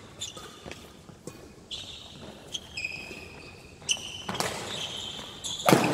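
Doubles badminton rally: rackets hit the shuttlecock with sharp taps, and sneakers squeak on the court floor. A loud racket smack comes near the end.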